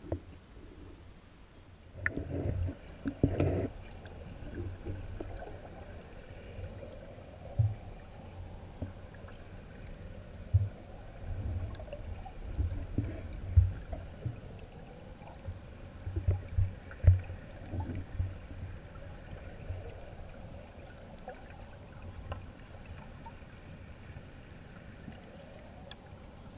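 Muffled rush of stream water heard through an underwater camera housing, with irregular low thumps and knocks from about two seconds in.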